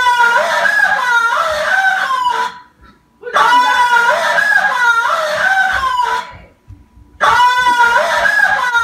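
A loud recorded noise played back three times over, each time the same warbling, wavering call of about two and a half seconds, with short pauses between.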